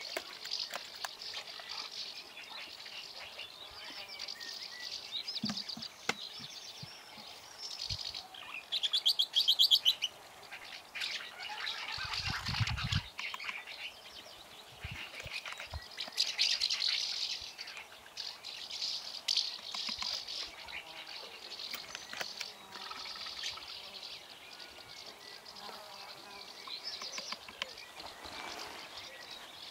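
Birds chirping and calling over a steady chorus of insects, with one loud, rapid trill about nine seconds in. A brief low rumble comes about twelve seconds in, and small clicks and rustles are scattered throughout.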